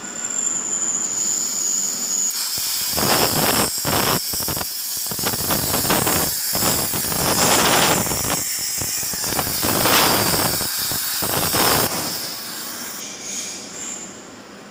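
Cutting torch on a CNC plasma and flame cutting table hissing steadily as it cuts steel plate. A thin high whine comes first, the full hiss starts about two seconds in, and it dies away near the end as the cut finishes.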